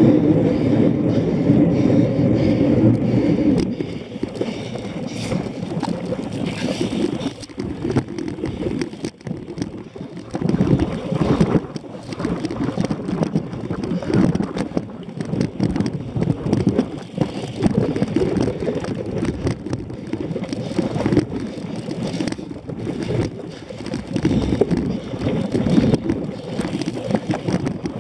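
A cyclocross bike ridden over the course, picked up by a camera on its handlebars: a steady rumble for the first few seconds, then an uneven rattling and knocking as it jolts across bumpy grass, with wind on the microphone.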